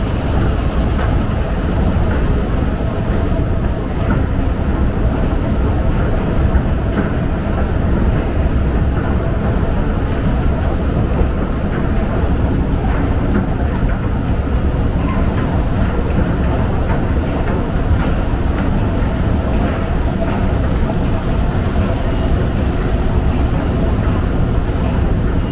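Subway station ambience: a steady low rumble with indistinct voices mixed in.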